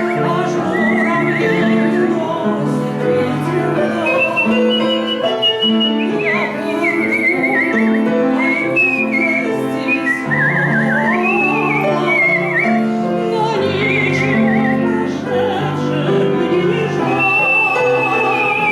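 Artistic whistling of a slow romance melody, high and with a wide vibrato, gliding between held notes over piano accompaniment.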